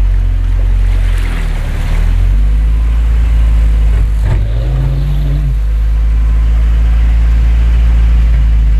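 Pickup truck engine running steadily while the truck sits in shallow water, with water sloshing around it. About four seconds in there is a short knock, and then the engine note rises briefly.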